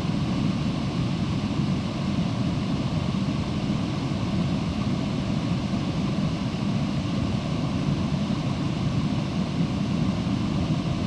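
Creek water running with a steady, low rushing noise that does not change.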